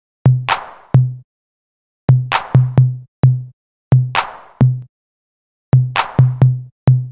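Electronic drum-machine beat programmed in FL Studio: deep, booming kick drums and sharp, hissy snare hits in a syncopated pattern, each group of hits followed by a brief silence. Drums alone, with no melody or vocals.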